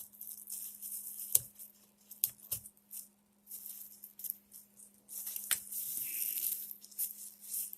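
Scratchy brushing and scraping inside an old Singer sewing machine's mechanism as dirt is dug out, with a few sharp clicks of a tool against the metal parts, over a faint steady hum.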